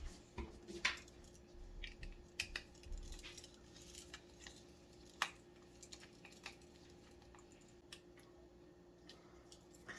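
Faint, irregular clicks and taps of hard plastic being handled as a spring-loaded belt clip is pressed onto a handheld two-way radio, over a faint steady hum.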